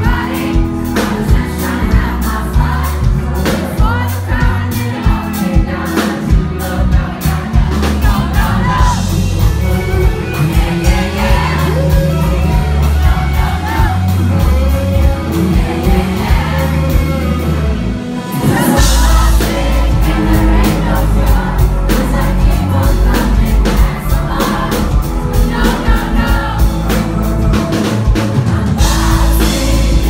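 Live pop-rock band with a male lead singer, heard from the audience through a club PA: vocals over guitar, drums and bass. About two-thirds of the way through, a cymbal crash brings the full band in harder, with a heavy bass beat.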